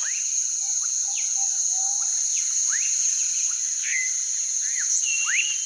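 Wetland ambience: a steady high-pitched insect drone with many short bird chirps and whistles, some rising and some falling.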